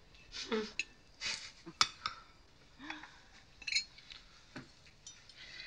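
Cutlery clinking and scraping on china plates during a meal: a string of separate clinks and short scrapes, the sharpest clink about two seconds in.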